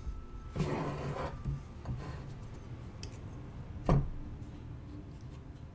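Small hand chisel scraping and chipping at a dry plaster face cast: a rasping scrape about half a second in, faint ticks, then one sharp click of the blade about four seconds in.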